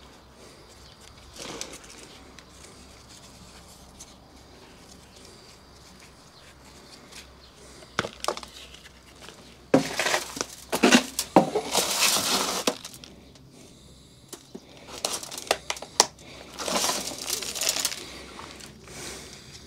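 Handling noise from the potting: bouts of crinkly rustling, with sharp clicks and knocks, in two stretches in the second half after a quiet start.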